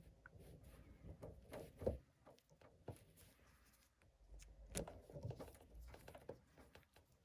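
Near silence, broken by a few faint clicks and knocks.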